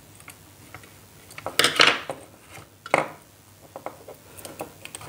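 Hands handling a plastic bulb holder, wire and screwdriver: scattered small clicks and taps, a louder rattling scrape about a second and a half in, and a sharp knock near three seconds.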